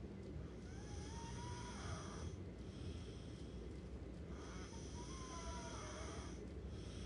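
Snoring in slow, even breaths: two long snores about four seconds apart, each about two seconds long with a thin whistling tone in it.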